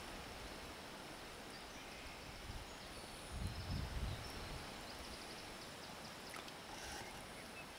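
Quiet outdoor ambience with a faint steady hiss and a few faint high ticks, and a brief low rumble of wind on the microphone about three and a half seconds in.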